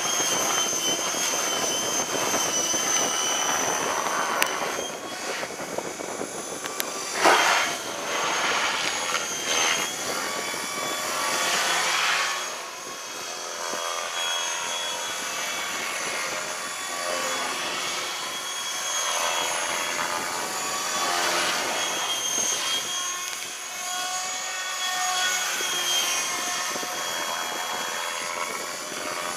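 High-pitched motor whine of a flying model, most likely a radio-controlled aircraft, going up and down in pitch as the throttle changes. Wind buffets the microphone, with a loud gust about seven seconds in.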